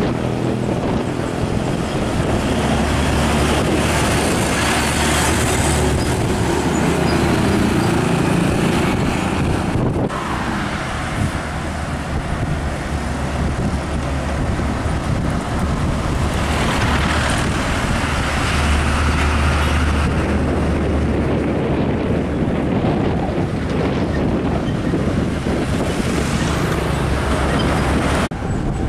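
Heavy Hino diesel trucks with trailers driving past on the highway: a steady low engine hum under tyre and traffic noise. The sound changes abruptly about ten seconds in and again near the end as one passing truck gives way to the next.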